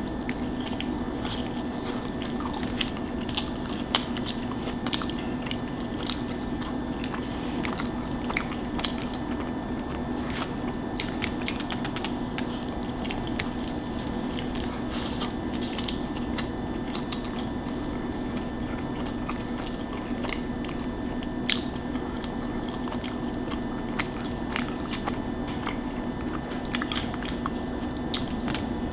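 A person eating close to the microphone: chewing, with many small wet mouth clicks and smacks scattered throughout, over a steady low hum.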